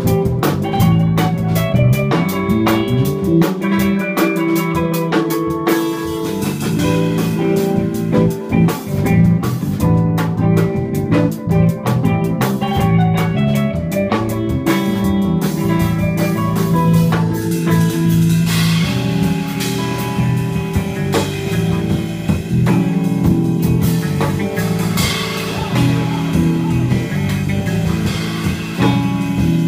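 A jazz quartet playing live: semi-hollow electric guitar, electric bass, keyboard and drum kit, with the cymbals sounding more heavily from about two-thirds of the way through.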